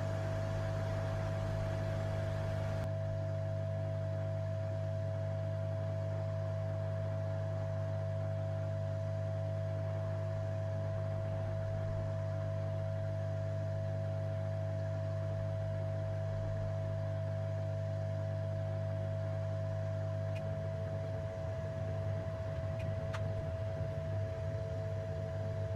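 Hot air rework station running, its blower sending a steady stream of hot air onto a circuit board, heard as an even low hum with a fainter higher tone; the hum turns a little uneven about twenty seconds in. The air is reflowing solder paste under surface-mount resistors.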